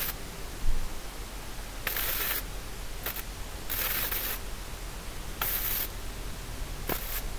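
MIG welder laying short tack welds on steel rebar: about five brief bursts of crackling arc, each under a second, with short pauses between them.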